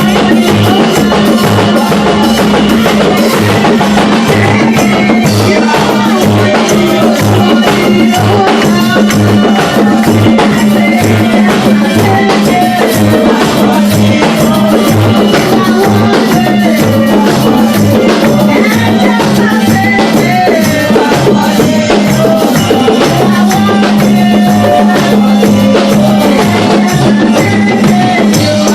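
Live church worship music: a steady drum beat with shakers and a held low note under voices singing.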